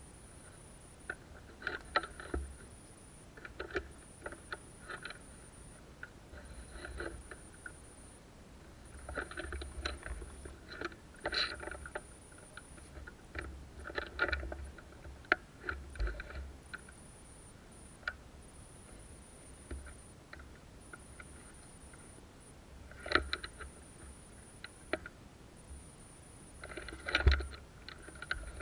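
Rustling and crunching of a person moving through dry forest undergrowth, in irregular clusters of crackles with dull low thuds.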